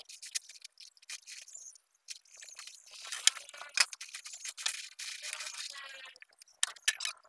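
Light clicks, taps and scraping from handling wooden workpieces, a plastic spring clamp and a pencil on a plywood workbench, with a denser stretch of scratching and rattling about halfway through.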